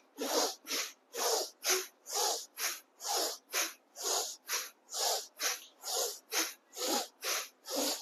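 Bhastrika pranayama (bellows breath): forceful breaths in and out through the nose, each a short hiss. Inhale and exhale strokes alternate in an even rhythm at about two strokes a second.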